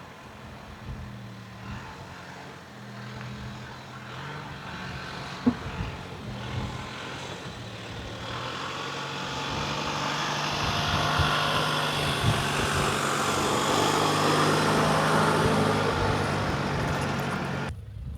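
A vehicle driving along a dirt trail: a steady low engine hum, with tyre and road noise growing louder through the second half and stopping abruptly near the end.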